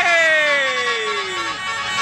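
Bus telolet horn of the melodic 'basuri' type, sounding one note that slides down in pitch for about a second and a half.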